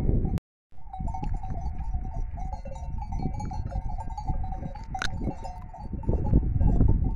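Outdoor sound of a flock of Merinolandschaf sheep at pasture, over a heavy low wind rumble on the phone's microphone. There is a short dropout in the sound just under a second in, and a single sharp click near the five-second mark.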